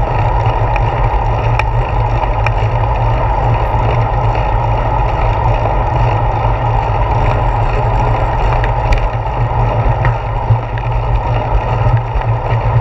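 Wind buffeting the microphone of a handlebar-mounted GoPro Hero 4 on a moving bicycle, with steady road rumble from the tyres coming through the bars. A few light clicks sound now and then.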